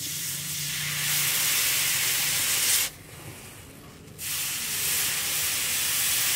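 Red-hot leaf-spring steel axe head being quenched in water, sizzling in two long hisses with a break of about a second between, as the edge is dipped, lifted and dipped again to harden it.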